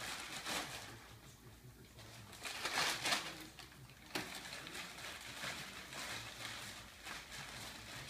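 A small dog moving about inside a cardboard box, its claws scratching and scuffing on the cardboard, with a louder scraping stretch about three seconds in and a sharp knock about a second later.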